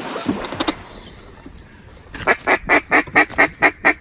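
Mallard duck call blown in a fast, even string of sharp quacks, about six or seven a second, starting about halfway in, the kind of calling used to pull passing ducks toward the decoys.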